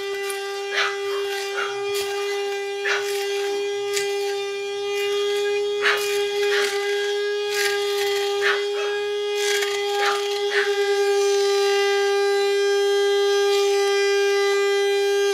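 Hand-held immersion blender running with a steady high whine in a stainless steel bowl while it blends a thick sauce. Its head knocks sharply against the metal every second or so for the first two-thirds, then it runs smoothly. It is switched off at the very end and its pitch falls as the motor spins down.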